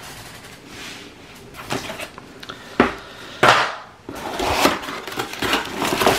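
Cardboard laptop box and its packaging being handled: a sharp tap about three seconds in, then a louder scrape of cardboard, followed by rustling as hands reach into the box for the plastic-bagged power cord.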